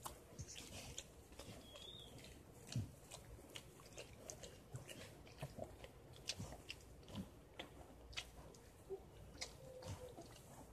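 Mother dog licking her newborn puppy: faint, irregular wet smacks and clicks of her tongue and mouth.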